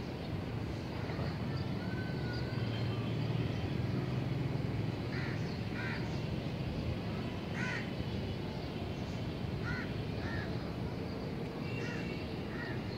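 Crows cawing: a handful of short calls, mostly in pairs, starting about five seconds in, over a steady low background rumble.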